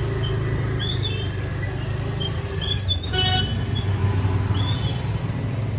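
Small birds chirping in short, high calls, repeated several times with a busier cluster about midway, over a steady low rumble of traffic.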